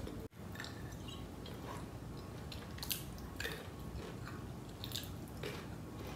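Fingers fishing in a jar of pickled gherkins, the brine giving several short wet splashes and drips, most of them in the second half.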